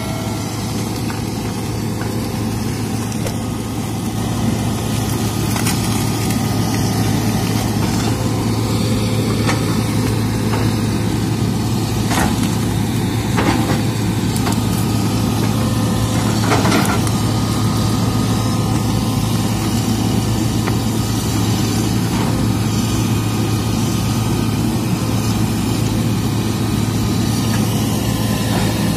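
Hitachi hydraulic excavator's diesel engine running steadily while the machine digs, heard close up from on the machine. A few short sharp knocks from the working bucket, in the middle stretch.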